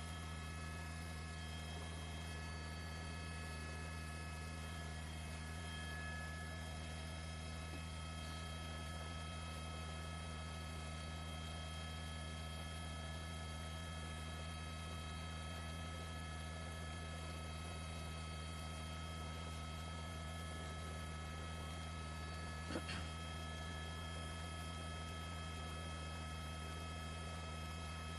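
Steady electrical hum with several faint, fixed high tones above it, and one short click about three-quarters of the way through.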